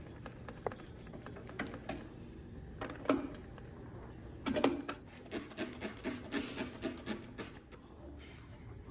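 Coins and small metal parts clinking and rattling as they are handled, with a louder clatter about three seconds in and again about four and a half seconds in, then a run of quick knocks.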